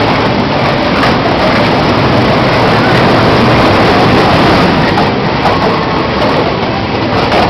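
Small amusement-ride train running along its track: a loud, steady mechanical noise.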